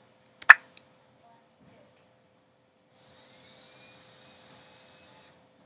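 A single sharp click about half a second in, then a felt-tip marker squeaking faintly across a whiteboard for about two seconds as a long wavy line is drawn.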